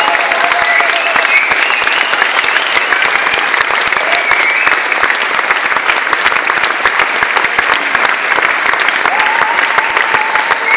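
Theatre audience applauding steadily at a curtain call, dense clapping from a full house.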